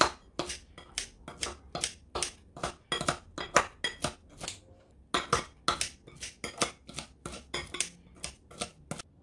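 Kitchen scissors snipping repeatedly through soaked mung bean vermicelli in a bowl, then through soaked black fungus: quick, sharp snips about three a second, with a brief pause a little before halfway.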